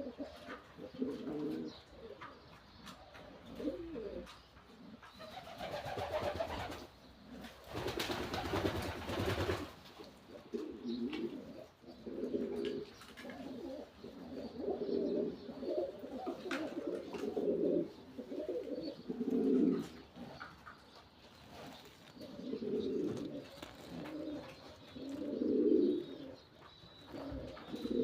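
Domestic pigeons cooing again and again, low rolling coos every second or two, with a short rustling burst of noise about eight seconds in.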